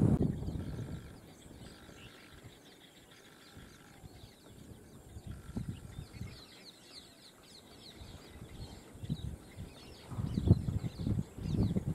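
Birds calling in open scrub: a few short, held calls, then a run of quick descending chirps. Loud low thumps and rumbles come in near the end.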